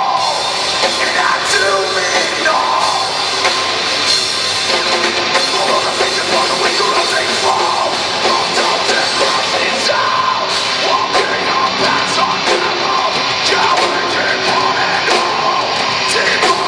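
Live heavy metal band playing loudly, with distorted guitars and drums under shouted, sung vocals.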